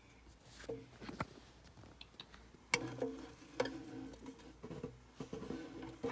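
A hand tapping and scraping against a clear plastic tub, with light rustling and scattered clicks, two of them sharper about three seconds in.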